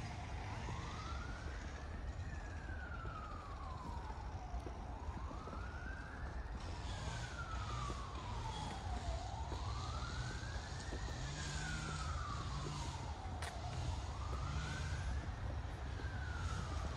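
Emergency vehicle siren wailing, slowly rising and falling about every four and a half seconds, over a steady low rumble.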